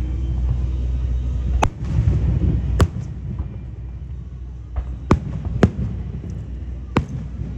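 Aerial firework shells bursting overhead: five sharp bangs at uneven intervals, two of them close together near the middle. A low rumble lies under the start and drops away at the first bang.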